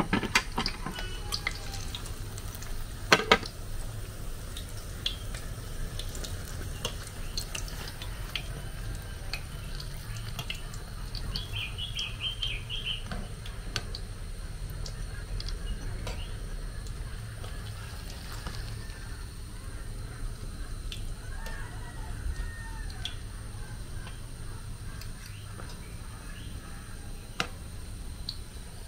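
Hot oil sizzling steadily around plantain puff puff dough balls deep-frying in a metal pan, with a few sharp clicks of a metal slotted spoon against the pan, the loudest about three seconds in.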